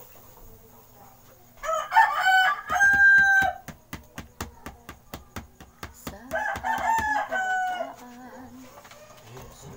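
A rooster crowing twice, a few seconds apart, each crow a long pitched call. Between and under the crows runs a steady series of sharp taps, about five a second.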